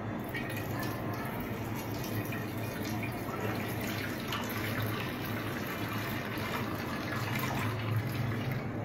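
Carrot and beetroot juice poured in a steady stream from a steel bowl into an iron kadai, splashing into the dark liquid already in the pan.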